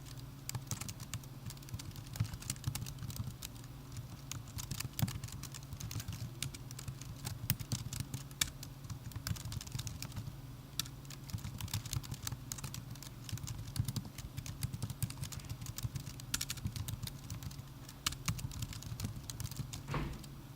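Typing on a MacBook Pro laptop keyboard: a fast, irregular stream of light key clicks, with a low steady hum underneath. The typing stops just before the end.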